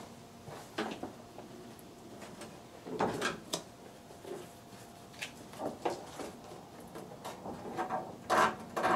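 Car door trim panel being handled and fitted against the door: scattered knocks and rubbing, with a cluster around three seconds in and the loudest pair near the end.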